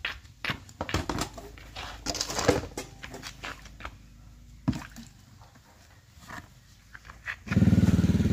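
Footsteps on concrete and plastic buckets knocking as they are carried and set down, then near the end a motorbike engine starts running loudly close by.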